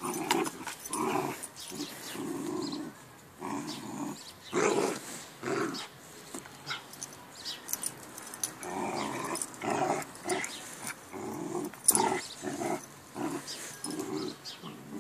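Two dogs play-fighting, growling in a string of short, rough growls over and over, the loudest about twelve seconds in. It is rough play, not a real fight: it sounds worse than it is.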